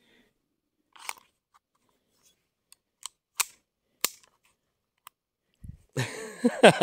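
About six short, sharp clicks and snaps from a CO2 air gun, spaced irregularly over about four seconds. A man starts laughing near the end.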